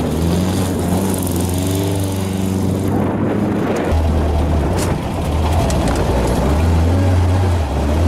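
Open dune buggy's engine running and revving, its pitch rising and falling, heard first from outside as it drives past and then from the driver's seat after a cut about four seconds in.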